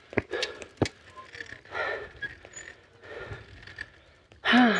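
A cyclist breathing hard from a steep uphill bicycle climb, with soft breathy exhales and a short voiced gasp near the end. Two sharp clicks sound in the first second.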